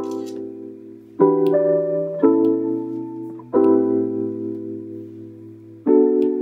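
Background piano music: slow, held chords, a new one struck every second or two.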